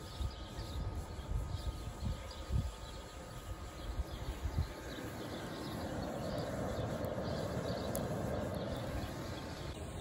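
Hairdryer-blown charcoal foundry furnace running: a steady rushing of the forced air and burning coals, swelling about halfway through and holding until near the end. Irregular low bumps are heard in the first half, with faint bird chirps.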